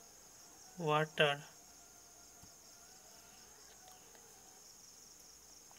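One spoken word about a second in, then a faint, steady high-pitched drone in the background.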